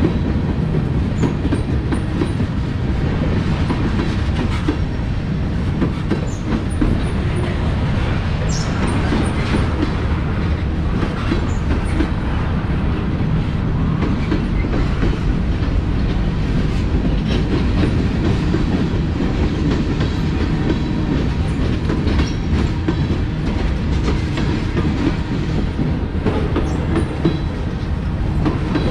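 Freight train tank cars and covered hopper cars rolling past: a loud, steady rumble of steel wheels on rail, with clicking as the wheels cross rail joints and a few brief high squeaks.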